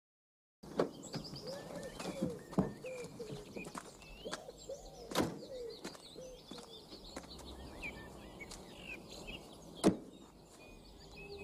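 Birds chirping and calling in woodland, with a few sharp knocks of car doors being opened and shut; the loudest knock comes near the end.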